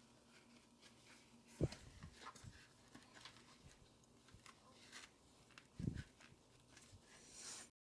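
Faint handling noises of intercom wiring being fed through motorcycle helmet padding: light clicks and rustles, with two soft thumps, one about a second and a half in and one near six seconds, and a brief hiss just before the sound cuts out.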